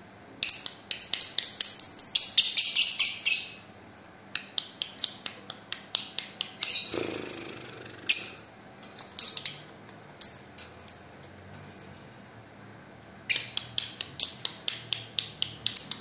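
Young lovebird chirping in shrill, high-pitched bursts. A rapid run of sharp chirps in the first few seconds, then scattered chirps and one longer call in the middle, and another quick run near the end.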